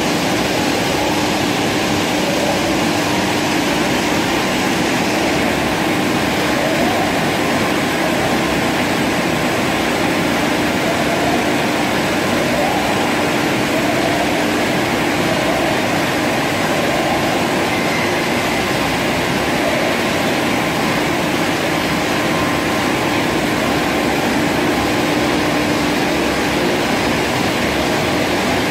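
Spray sterilizer tunnel running on a bottling line: a steady, loud rush of machine and spray noise with a constant low hum and no breaks.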